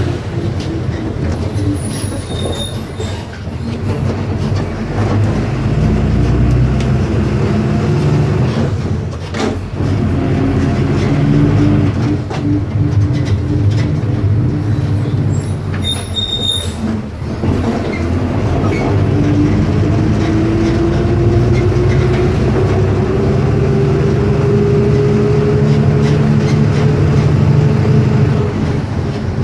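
Volkswagen 17.230 EOD bus's diesel engine pulling under load, its pitch climbing steadily as the bus gathers speed, with brief drops in pitch and level at gear changes a few times along the way.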